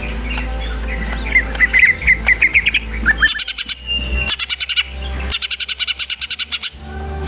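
Young songbird calling: a run of quick high chirps, then two fast trills of short repeated notes about three and five seconds in, over a steady low hum.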